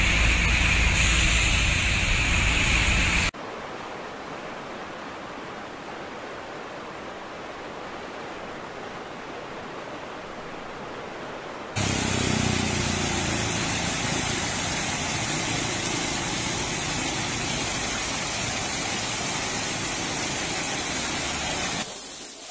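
Rushing muddy floodwater: a loud rush with a heavy low rumble that drops abruptly about three seconds in to a quieter steady hiss, then rises again about twelve seconds in to water cascading over a concrete wall into a drainage channel.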